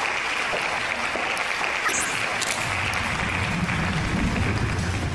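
Crowd applause, a dense even patter of many hands clapping, joined about three seconds in by a low rumble that swells.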